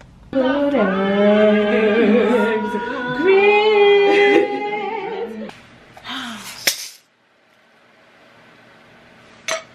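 A voice singing long, drawn-out notes with a wavering vibrato, breaking off about five and a half seconds in. Two sharp clicks follow in the quieter second half, about three seconds apart.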